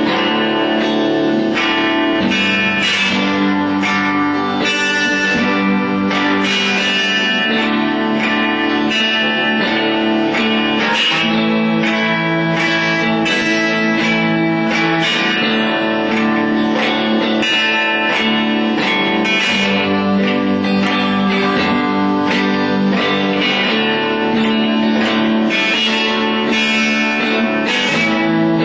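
Two amplified guitars jamming together: a homebuilt cigar box guitar played flat on the lap and a Fender Telecaster electric guitar, playing sustained notes and chords without a break.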